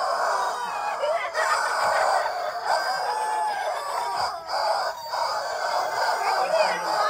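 Several squeezed rubber chicken toys squawking all at once, their screeches overlapping into one continuous squawking.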